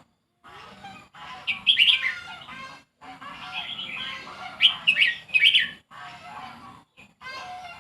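Songbird singing loud, quick, sharply gliding phrases in two spells, about a second and a half in and again about four and a half seconds in, over a steady chatter of other birds chirping.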